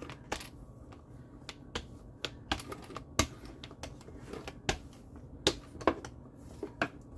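Rolling pin working a sheet of dough: a string of irregular sharp clicks and knocks, a few louder knocks among them.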